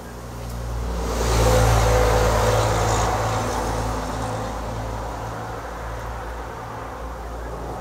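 A motor vehicle passing by, swelling to its loudest about one and a half seconds in and then slowly fading away over a low steady hum.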